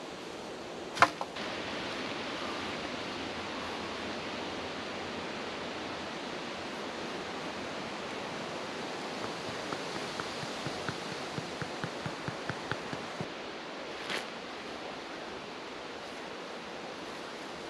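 Steady rushing of wind through trees. A single sharp click comes about a second in, and a run of about a dozen quick, light taps follows in the middle, roughly three a second. A second, softer click comes near the end.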